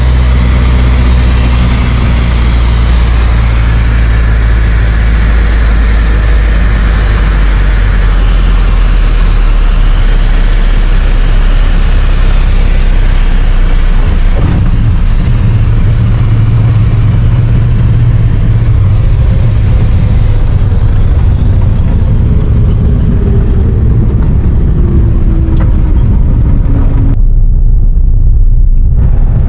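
Light aircraft's piston engine and propeller running steadily, loud and close as if heard inside the cabin. A fainter tone falls slowly in pitch in the second half, and near the end the higher part of the noise cuts out for about two seconds, leaving only the low engine drone.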